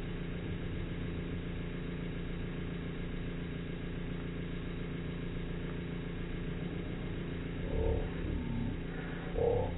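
Espresso machine running with a steady low hum while a shot pulls through a bottomless portafilter. Near the end a few short, louder low sounds come in, one sliding down in pitch.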